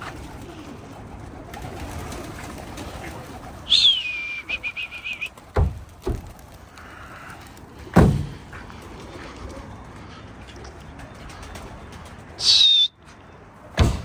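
Domestic pigeons cooing as the flock takes off from a rooftop loft. Two loud whistles cut through: a falling one about four seconds in that ends in a trill, and a shorter one near the end. Several sharp thumps come in between.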